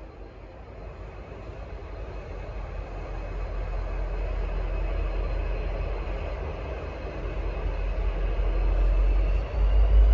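Diesel-electric locomotive pulling away under power, its engine running with a deep rumble that grows steadily louder.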